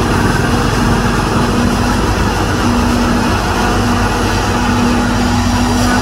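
New Holland FX38 self-propelled forage harvester running as it cuts and chops standing corn for silage: a loud, steady machine drone with a continuous humming tone.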